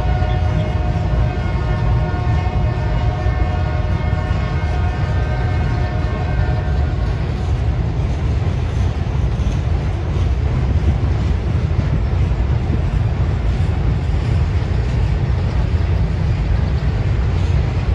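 Freight cars rolling across a railroad bridge, a steady low rumble. A locomotive horn holds a long chord over it, fading out about six seconds in.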